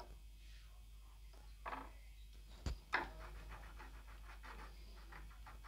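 Handling noise on a repair bench: soft rustling and brushing sounds with a sharp click a little before halfway, over a steady low hum.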